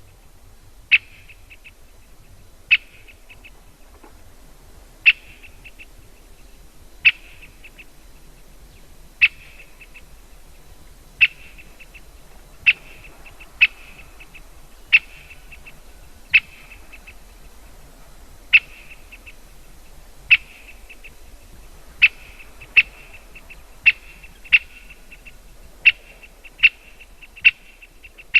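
Great spotted woodpecker making a series of sharp, single clicking sounds, about one every one to two seconds and coming a little faster near the end, each with a brief ringing tail.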